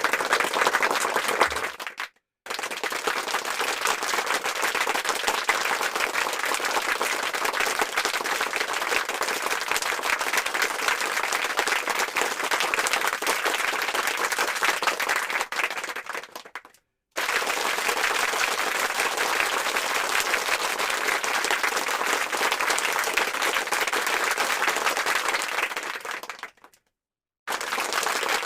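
Crowd applause, a dense patter of many hands clapping, played as a series of recorded takes: each fades out into a short silence before the next starts, three times.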